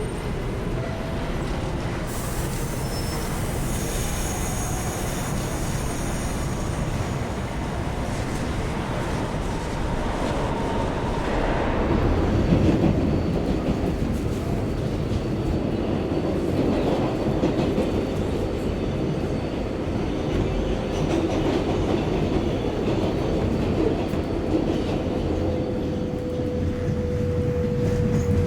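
New York City subway train running on the track: a steady rumble of wheels on rail, with thin high wheel squeal in the first few seconds, growing louder about twelve seconds in, and a steady whine in the second half.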